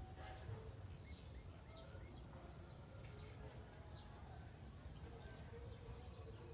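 Faint outdoor background: small birds chirping repeatedly over a low rumble of ambient noise, with a thin high steady tone that drops out about three seconds in.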